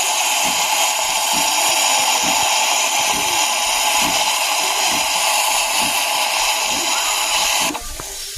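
Espresso machine steam wand frothing milk for a latte: a loud steady hiss that cuts off abruptly near the end.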